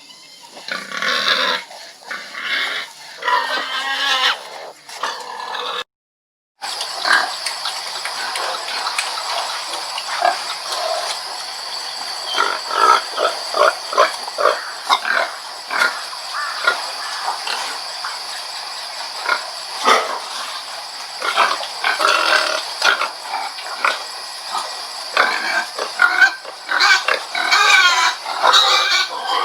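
Pigs grunting in many short, irregular grunts close together. About six seconds in there is a brief cut to silence between two recordings, and the second carries a steady hiss behind the grunts.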